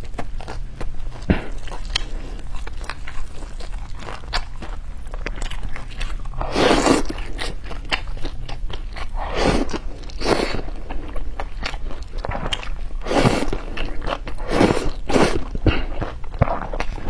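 A person eating close to the microphone: bites, chewing and crunching, with several louder noisy bursts a second or two apart.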